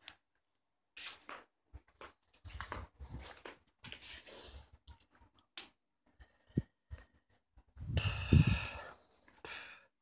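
A phone being handled close to its microphone: irregular rubbing, scraping and clicking from fingers on the phone, with a louder rush of noise about eight seconds in.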